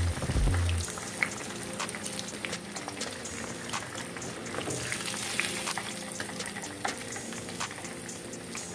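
Parrot fish frying in hot oil in a pan: a steady sizzle with many small crackles and pops of spattering oil. A low rumble sounds briefly in the first second.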